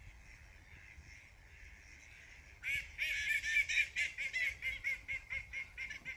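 Waterfowl on a pond calling: a fast run of loud, repeated nasal calls, about four a second, that starts about two and a half seconds in over a faint low background.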